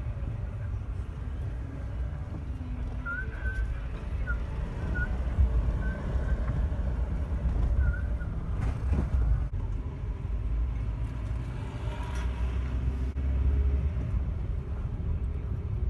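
Steady low rumble of a car driving slowly, heard from inside the cabin, with a few short faint high chirps a few seconds in.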